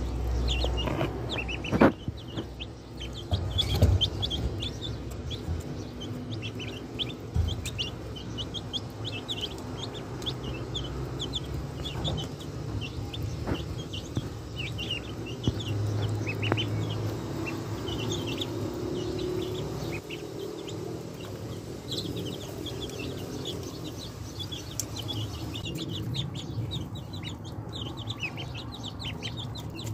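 Ducklings peeping, a steady stream of short high chirps. A couple of sharp knocks come in the first few seconds.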